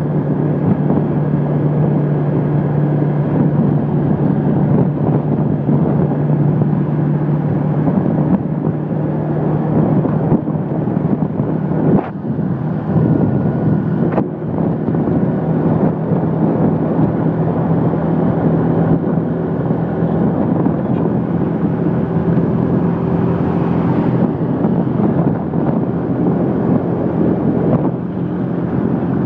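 Motorcycle engine running at a steady cruising speed, with wind buffeting the microphone on the moving bike. Two brief knocks sound near the middle.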